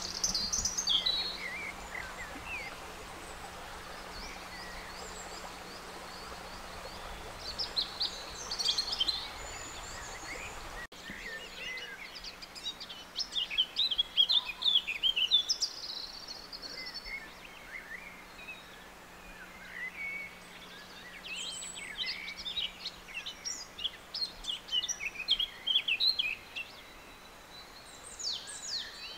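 Great tits calling from the nest box: clusters of short, high chirps and trills coming in bursts, busiest around the middle and again past two-thirds of the way through. A steady low hum and a faint background hiss run underneath.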